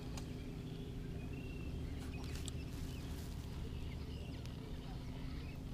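Quiet lakeside outdoor ambience: a steady low hum with faint, scattered bird chirps.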